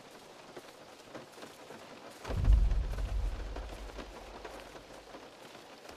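One deep, heavy boom of a Tyrannosaurus footstep, felt as much as heard, about two seconds in and dying away over a couple of seconds. Steady rain patters on the tour car's roof throughout.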